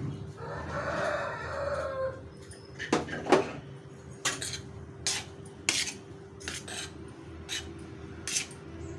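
A steel spoon clinking and scraping against a steel plate in irregular clicks as cooked rice is mixed, starting about three seconds in. Before that, a drawn-out animal call of about two seconds is heard in the background.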